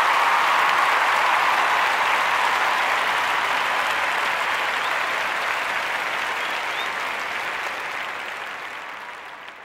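Applause from a crowd, steady at first and slowly fading out toward the end.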